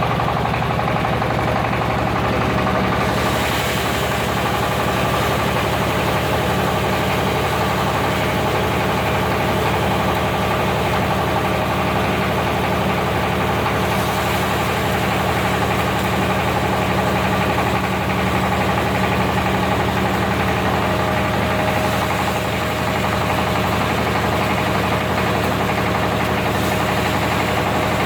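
Disk mill grinding machine running steadily with a constant hum and a steady tone; a higher hiss joins about three seconds in and stays.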